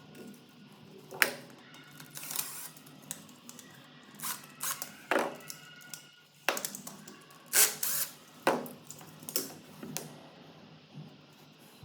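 A series of about a dozen irregular clicks, knocks and short scrapes, like hands working with tools and small hard parts. The sharpest clicks come about a second in and again after seven seconds.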